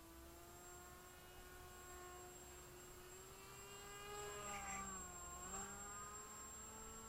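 Faint whine of an RC flat-plate model plane's motor and propeller in flight, its pitch wandering as the plane flies about. About four and a half seconds in it grows louder and the pitch dips and comes back up as the plane passes nearer.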